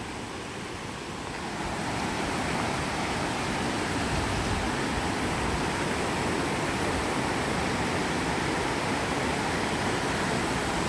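Mountain creek rushing over boulders and stones, a steady whitewater rush that swells over the first two seconds and then holds level.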